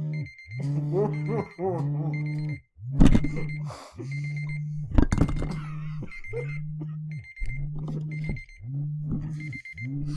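Smartphone timer alarm going off at the end of a one-minute countdown: a short electronic tone repeating about once a second. Two loud sudden noises cut in about three and five seconds in.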